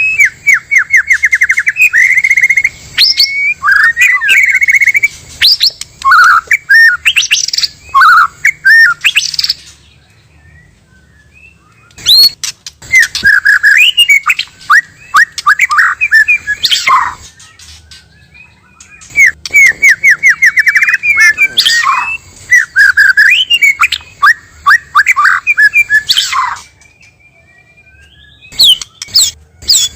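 White-rumped shamas, male and female, singing: loud, varied phrases of rapid trills and rising and falling whistles. The song comes in bursts of several seconds, with three short pauses.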